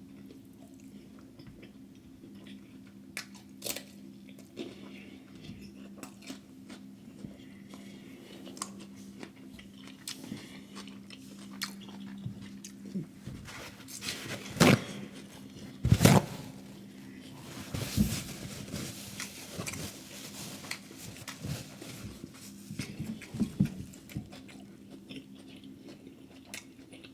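A person eating close to the microphone: wet chewing and crunchy bites, with a few louder crisp bites near the middle, over a steady low hum.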